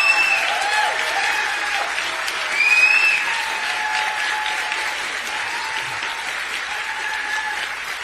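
Audience applauding and cheering, with whoops and shouts that peak at the start and again about three seconds in, then the clapping slowly tapers off.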